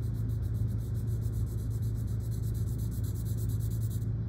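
A soft 4B graphite pencil scratching on paper in quick, evenly repeated vertical shading strokes. A steady low hum runs underneath and is the loudest sound.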